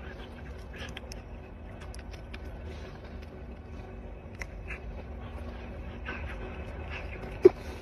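Red panda eating a grape from a hand: scattered soft clicks of chewing and mouth smacking over a steady low hum, with one sharp, louder click near the end.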